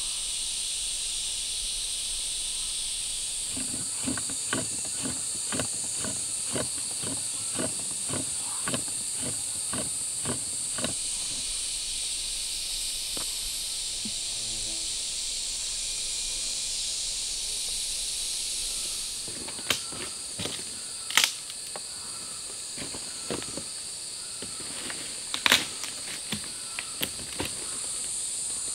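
Steady high-pitched drone of insects, with a run of regular knocks about twice a second for several seconds, then scattered sharper knocks and clicks later on.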